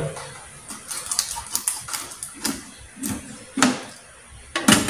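Knife cutting and scraping through a chicken carcass during deboning, with irregular clicks and knocks of the knife and meat against a stainless steel tray. The knocks come about once or twice a second, the loudest near the end.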